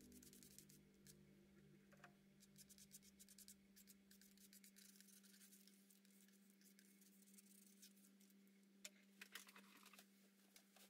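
Near silence: faint scratchy ticks of a painting knife dabbing acrylic paint onto the painted paper, over a steady low hum, with a few sharper ticks near the end.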